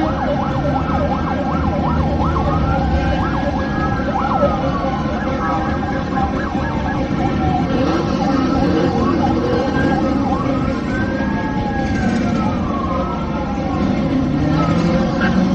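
Emergency vehicle sirens sounding, more than one at once: quick yelping sweeps at the start, then slow wails rising and falling every couple of seconds. Vehicle engines run underneath.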